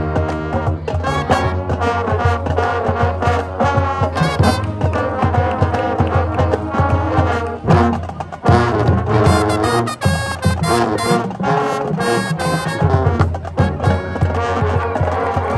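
High school marching band playing, with the brass section carrying the tune. There is a short break about halfway through before the full band comes back in.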